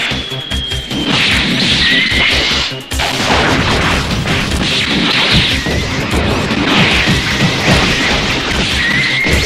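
A rapid barrage of punch and impact sound effects from an animated fist-fight, with swishes, over background music. There is a brief let-up about three seconds in.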